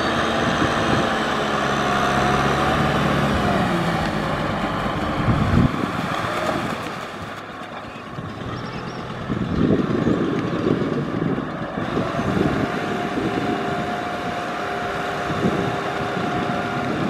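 Kubota M6040SU tractor's four-cylinder diesel engine running steadily while it pulls a rotary tiller through flooded paddy mud. The engine note falls a few seconds in, and a rougher stretch of churning comes about halfway through.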